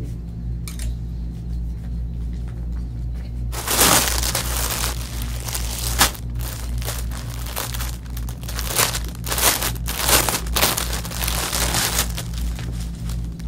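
Clear plastic garment bags crinkling and crackling as clothes are pulled out and handled, starting about three and a half seconds in, with a sharp crackle about six seconds in and more bursts later, over a steady low hum.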